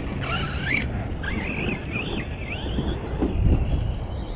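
Redcat Kaiju RC stadium truck's electric motor whining, its pitch rising and falling several times as the throttle is worked, over a low rumble.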